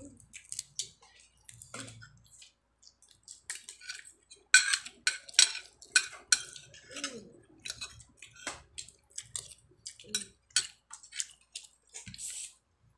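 Cooked crab shell being cracked and pulled apart by hand: a quick series of sharp cracks and clicks, thickest and loudest about four to six seconds in, mixed with light clinks on a plate.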